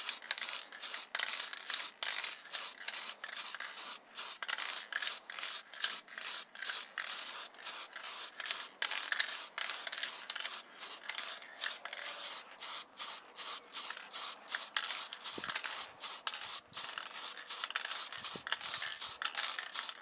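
Rhythmic hand rubbing and scraping strokes on a small model car part, about two to three strokes a second, steady throughout.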